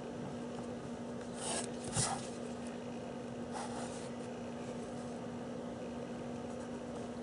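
Pencil drawing short lines on paper, three brief scratchy strokes about one and a half, two and three and a half seconds in, with a light knock at the second stroke. A steady low hum runs underneath.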